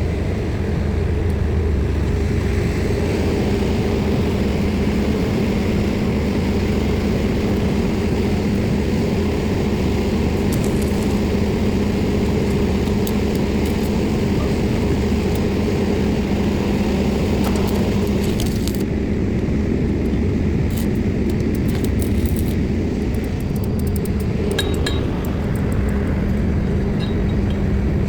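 Heavy diesel engine of a pile-driving rig running steadily with a deep, even drone. Faint metallic clinks come now and then in the second half.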